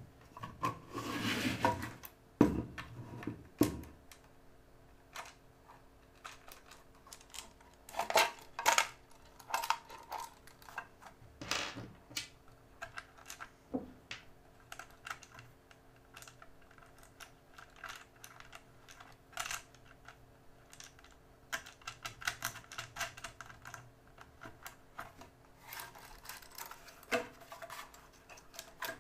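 Small metal screws, nuts and washers and a screwdriver clicking and tapping against a 3D-printed plastic base as they are fitted, in irregular light clicks, with a faint steady hum under the middle part.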